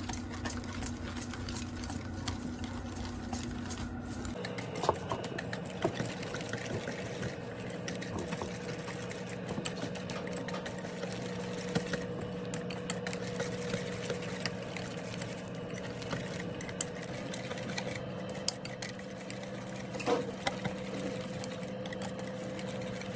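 A thick yogurt-and-spice marinade being stirred in a bowl: fast, even wet clicking and scraping of the utensil against the bowl.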